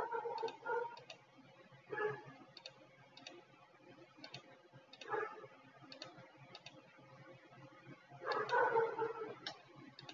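Light computer mouse clicks, irregular, about two a second, while an order price is picked from a drop-down list. A few soft murmurs of a voice under the breath and a steady low hum.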